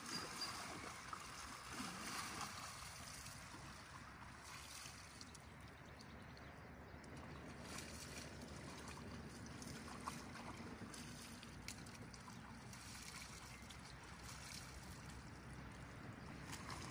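Quiet sloshing and splashing of a horse wading through a shallow river, over the steady rush of the stream.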